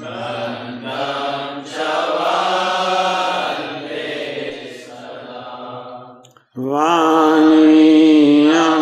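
Devotional hymn (kirtan) sung in long, drawn-out lines. About six and a half seconds in the singing breaks off for a moment, then a louder held note with a wavering pitch begins.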